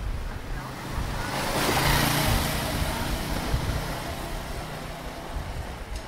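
A motor vehicle passing close by on the street, its tyre and engine noise swelling to a peak about two seconds in and then slowly fading, over a background of city traffic hum.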